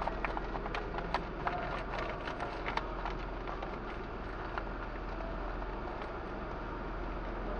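Mechanical parking tower working behind its closed doors: a steady machine hum with a run of irregular light clicks and knocks in the first three seconds and one more a little after halfway.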